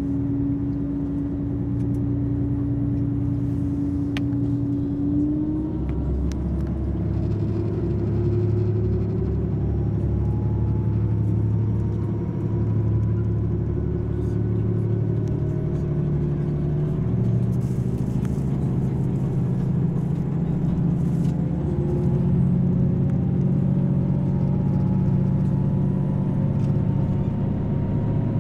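KiHa 281 diesel express railcar pulling away under power, heard from inside the car: a steady low engine drone whose pitch climbs slowly as the train gathers speed.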